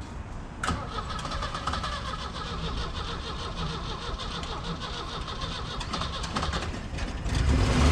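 Starter cranking the 1977 Chevy C10's engine in a fast, even rhythm with a steady starter whine for about six and a half seconds, for a relative compression test, then the engine fires and catches with a loud surge near the end; it runs with a misfire.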